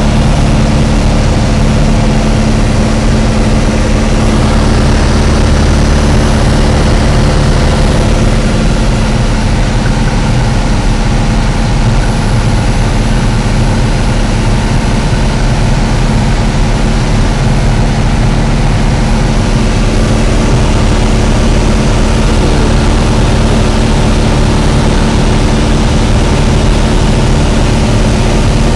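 Light aircraft's engine and propeller droning steadily, heard from inside the cockpit in flight.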